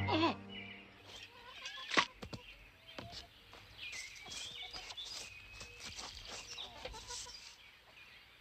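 Farmyard chickens clucking, with birds chirping, mostly in the middle of the stretch. There is a single sharp knock about two seconds in.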